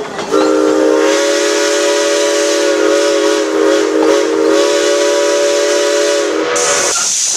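Narrow-gauge steam locomotive whistle blowing one long, steady chord of several tones for about six and a half seconds, over a hiss of steam. Near the end the whistle cuts off and a louder, higher hiss of escaping steam carries on.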